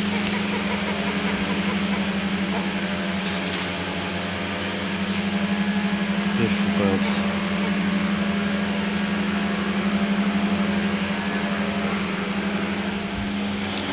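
Petrol strimmer running steadily in the background, a constant engine drone at one pitch.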